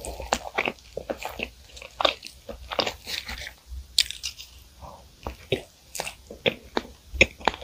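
Flaky pastry being torn apart, then bitten and chewed close to the microphone: a dense run of crisp crackles and crunches, several a second.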